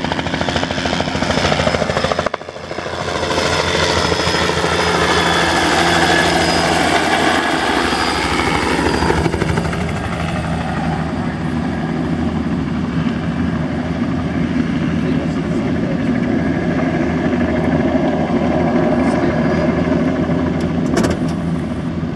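Bell 206 JetRanger helicopter running, its turbine engine tones steady under the rapid, even chop of the rotor blades, with a brief dip about two seconds in.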